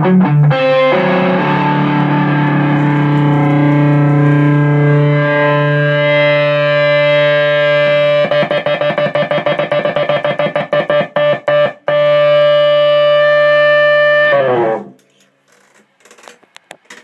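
Electric guitar played through a Jet City 20-watt tube amp head and 2x12 cabinet: a long sustained note, then rapid repeated picking, then another held note that is cut off abruptly about two seconds before the end, leaving only faint clicks.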